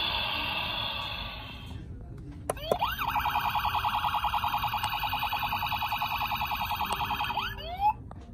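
Tonka Storm Chasers toy truck's electronic siren sound effect playing through its small speaker. It rises in with a quick sweep and then warbles fast and steady for about four and a half seconds before sliding off near the end. It follows a couple of seconds of noisier sound at the start.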